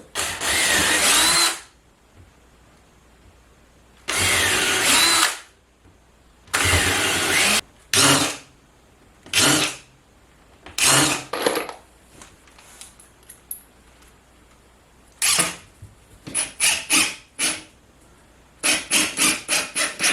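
Power drill run in bursts: three long runs of about a second and a half that rise in pitch as the motor speeds up, some shorter runs, then clusters of quick short trigger pulses near the end.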